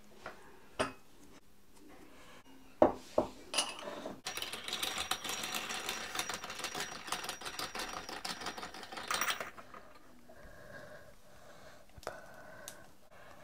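Stainless steel screw-type idiyappam press being worked by hand: a few metal knocks, then about five seconds of rapid, fine metallic clicking as the threaded plunger is turned.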